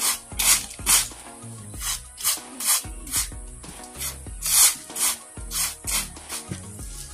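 Sand being sifted and scraped, a run of short rasping strokes at roughly two a second. Background music with low notes plays underneath.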